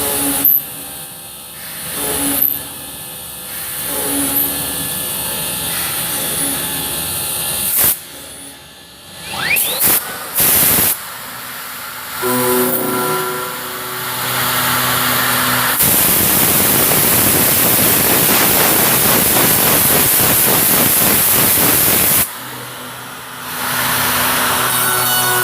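Comec MD TOP CNC wood machining centre at work, with a machine hum and short repeated pulses at first, then a few sharp clicks. Midway comes a long, loud hissing stretch of about ten seconds, which ends suddenly and gives way to the steady hum again.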